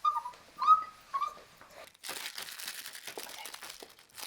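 Cavapoo puppy whimpering three short times, then a crinkling rustle from about two seconds in.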